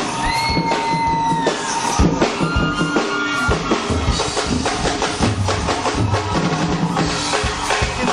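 Live axé band playing a driving drum beat, with bass drum and snare hits, through the stage sound system. A long held high note carries over the beat for about the first two seconds.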